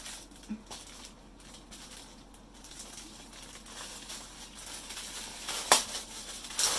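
Packaging being handled while a gift is unboxed: faint rustling, with a sharp knock about six seconds in and another just after.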